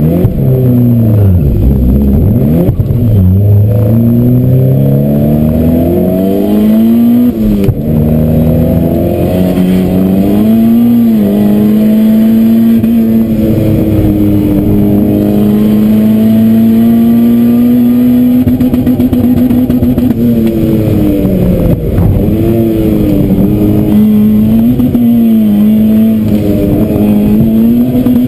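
Car engine under hard acceleration from a standing start, heard from inside the cabin: the revs climb and drop at each gear change through the first ten seconds or so, hold high and fairly steady for several seconds, then dip and rise again a few times near the end as the driver lifts off and accelerates again.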